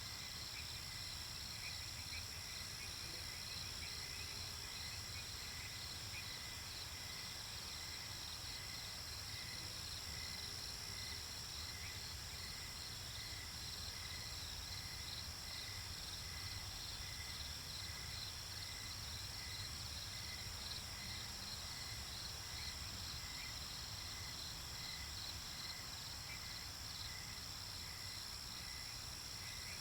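Night-time chorus of crickets and other insects: a steady high-pitched trill with regular chirps repeating over it.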